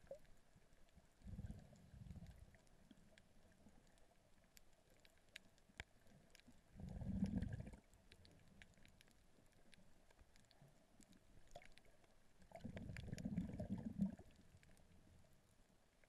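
Muffled sound picked up by a camera held underwater while snorkeling: three low surges of water noise about five seconds apart, with faint scattered clicks between them.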